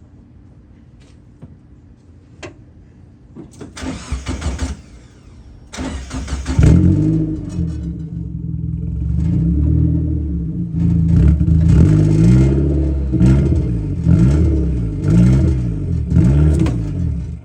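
A car engine cranking, catching about six seconds in and running, then revved several times with the pitch rising and falling.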